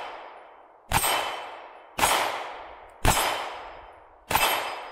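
Four 9mm shots from a Beretta PX4 Storm pistol, about a second apart, each followed by the ring of the AR500 steel gong being hit and a long fading tail.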